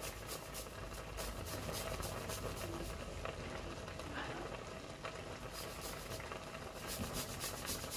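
Garlic being grated on a fine rasp grater: quick, repeated scraping strokes.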